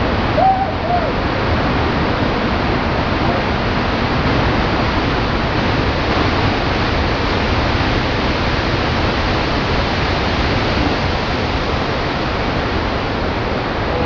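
Steady roar of giant surf breaking at Jaws, heavy whitewater running without a break. About half a second in, a short hooting cry rises and falls over it.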